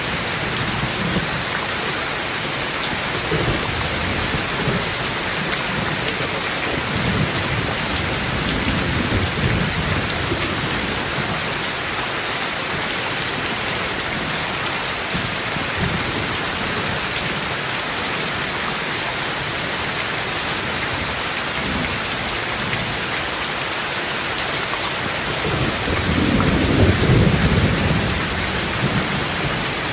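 Steady heavy rain, with low rolls of distant thunder coming and going; the loudest roll swells up near the end.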